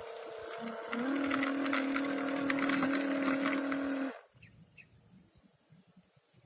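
Small electric motor of an RC model boat whining steadily, with crackling throughout. About a second in, the whine drops in pitch and gets louder, as under heavier load. It stops abruptly about four seconds in.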